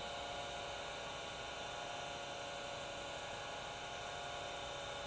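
Bench grinder with CBN wheels spinning freely, no tool on the wheel: a steady motor hum that does not change.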